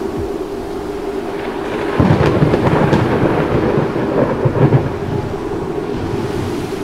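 Thunderstorm sound effect: a steady rushing noise like rain, with a low rumble of thunder swelling about two seconds in.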